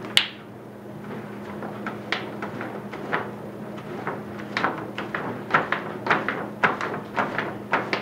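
A sharp click, then irregular light knocks and taps from painting gear being handled, coming about twice a second in the second half, over a steady low hum.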